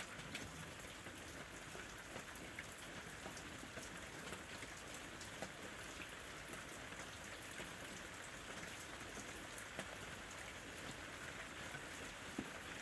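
Steady rain falling on a surface, an even hiss with the sharp ticks of individual drops scattered through it.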